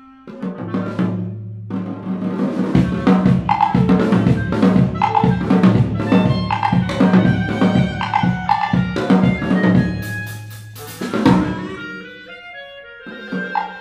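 Drum kit and clarinet playing together in a contemporary chamber piece. After a quieter opening of a few seconds, dense, rapid drum strokes on snare and bass drum run under sustained clarinet notes. A cymbal crash comes about ten seconds in, and the drumming then thins out.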